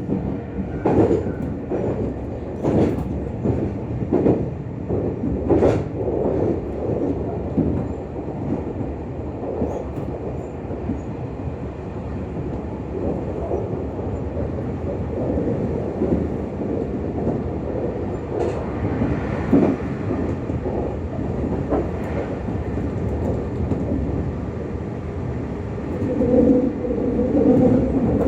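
Running sound heard inside a Meitetsu 6000 series train car: a steady rumble of wheels on rail, with sharp rail-joint clacks several times in the first six seconds and again a little past the middle. A humming tone swells near the end.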